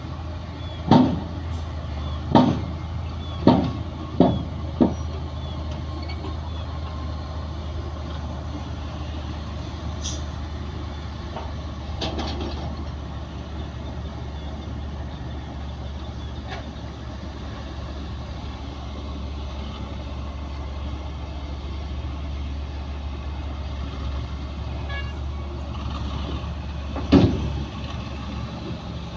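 Bulldozer's diesel engine running steadily under a low hum, with five sharp knocks in the first five seconds and another loud knock near the end, from the machine's blade and tracks at work.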